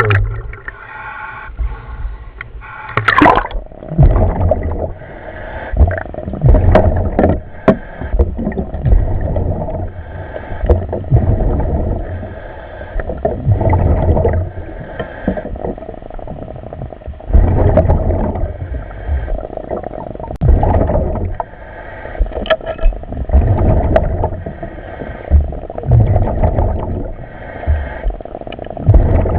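A commercial diver's breathing in the helmet, heard over the dive radio: a regular cycle of breaths about every three and a half seconds, with gurgling bubbles.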